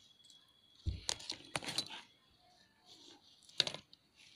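Plastic clicks and knocks of a charger plug being pushed and wiggled into a universal travel adapter: a dull thud about a second in, a run of sharp clicks after it, and one more sharp click near the end.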